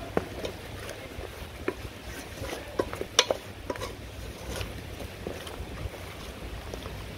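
Wooden spatula scraping and knocking against the side and bottom of an aluminium pot as a thick spice paste is stirred, in irregular strokes, the sharpest few about three seconds in. A steady low rumble runs underneath.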